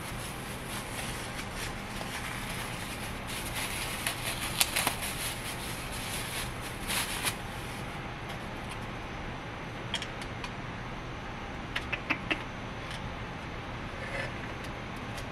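Plastic packaging crinkling and rustling as clear acrylic shelves are unwrapped, then a few light clicks of the acrylic pieces being handled. A low steady fan hum runs underneath.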